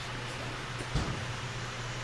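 Steady low hum with background hiss, and one light knock about a second in.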